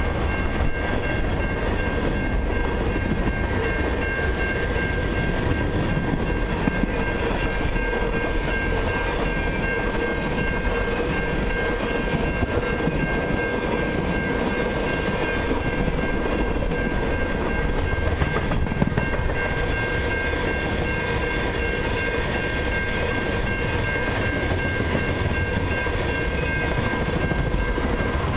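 Freight train's tank cars rolling past at close range: a steady rumble of steel wheels on the rails, with a steady high-pitched tone running over it.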